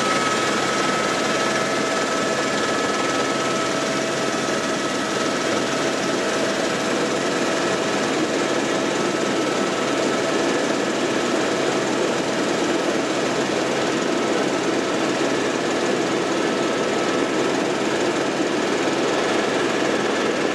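Helicopter cabin noise in flight: the steady drone of engine and rotor, with a constant high whine.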